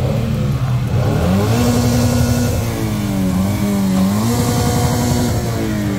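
Car engine revved hard through a loud exhaust: the pitch climbs and holds, dips about three seconds in, climbs again, then falls back near the end.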